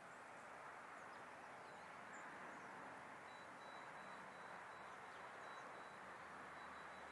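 Quiet outdoor ambience, almost silent: a steady faint hiss with a few faint high chirps, and a thin, steady high whine coming in about three seconds in.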